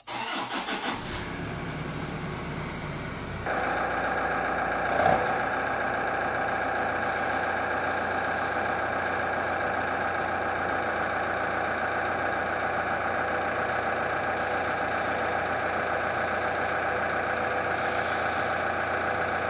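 Toyota Prado 150's diesel engine starting at the push of the start button, then idling steadily. About three and a half seconds in the sound steps up and holds steady while a plastic bag is held over the snorkel head, a suction test of the snorkel for air leaks. A brief louder knock about five seconds in.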